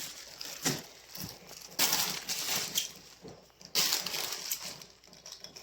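Packaging being handled during an unboxing: crinkling and rustling in a few short bursts, with quieter rustle in between.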